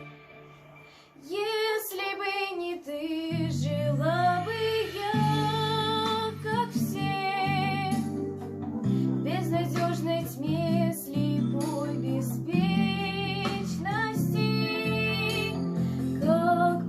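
A young female voice singing a slow sacred song with instrumental accompaniment. After a short pause in the first second, the music comes back in and runs on steadily.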